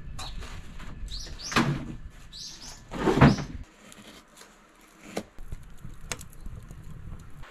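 Wooden sauna wall panels being handled, knocking twice about a second and a half apart, with a few short bird chirps. After that it goes quieter, with a few sharp clicks.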